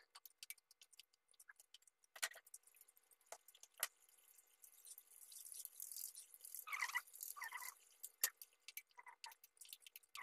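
Scattered light clicks and knocks of a wooden spatula stirring and tapping a frying pan of thick simmering sauce, with a faint hiss and two brief louder knocks about two-thirds of the way through.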